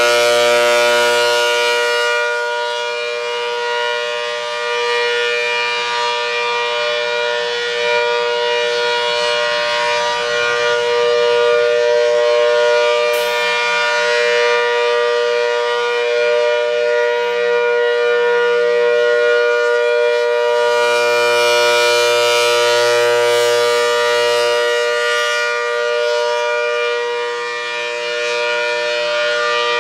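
ACA Hurricane 130 tornado siren, an 8/10-port dual-tone siren, sounding a steady alert signal: a held two-note chord. It grows brighter near the start and again about two thirds through, then dulls as the horn turns away. The siren sounds healthy.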